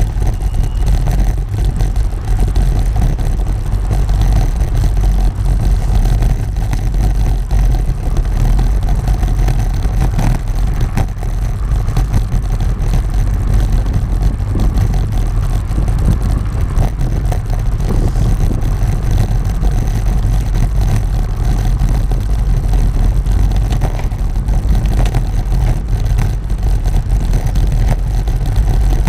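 Wheels rolling over Belgian block paving: a steady, loud rumble with a fast, uneven rattle from the stone blocks.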